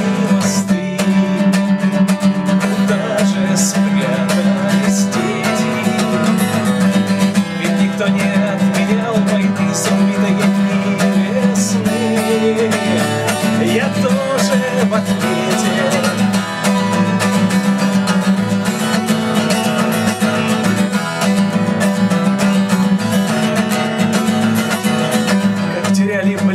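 Acoustic guitar strummed in a steady rhythm, an instrumental break between the sung verses of the song.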